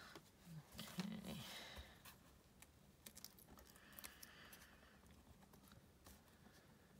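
Near silence, with faint clicks and light rustling of small foam adhesive pads being peeled off their backing sheet and pressed onto a paper die-cut.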